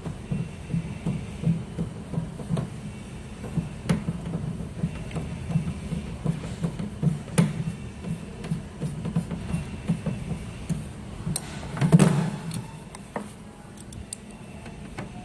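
Hand work on a plastic machine housing while screws are put in around the case: scattered light clicks and soft knocks, with one louder knock about twelve seconds in.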